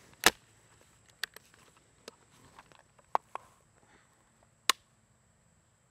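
Sharp metallic clicks and snaps from the break action of a Savage Model 42 .22 LR/.410 combo gun being reloaded, snapped shut and its hammer cocked. There is a loud snap right at the start, several lighter clicks, and another loud click about three-quarters of the way through.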